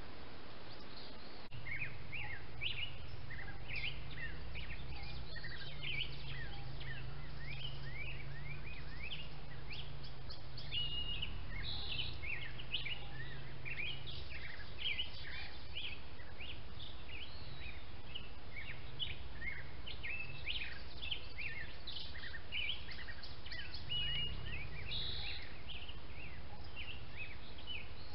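Many birds chirping and singing at once, a busy chorus of short chirps and whistles that starts about a second and a half in, over a steady low rumble.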